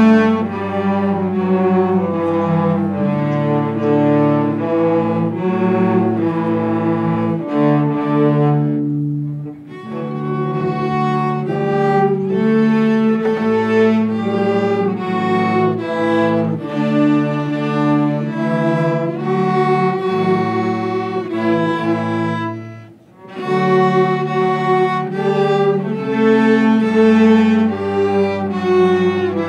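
A student cello ensemble plays a piece together, several cellos bowing sustained notes at once. The music breaks off briefly twice between phrases, about nine seconds in and again about twenty-three seconds in.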